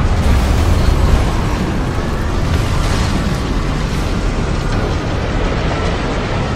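Tornado sound effect: dense, continuous wind noise over a heavy low rumble, the rumble easing slightly about a second in.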